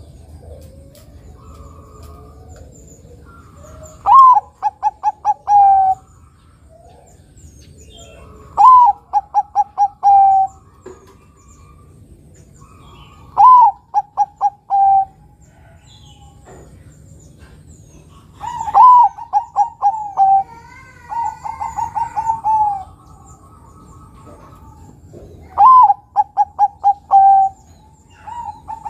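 Zebra dove (perkutut) singing: about six phrases, one every four to five seconds, each a loud rising-and-falling opening coo followed by a quick run of short clipped coos ending on a longer, lower note. Faint chirps of other birds sound between the phrases.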